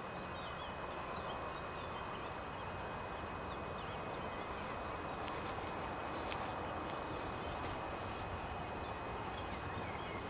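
Faint birdsong, a few short chirps and high notes, over a steady outdoor background hiss.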